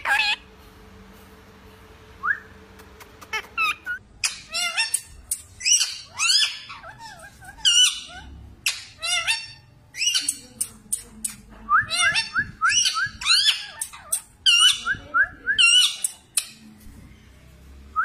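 Indian ringneck parakeets giving a rapid string of short, high-pitched squawks and chattering calls, starting about four seconds in.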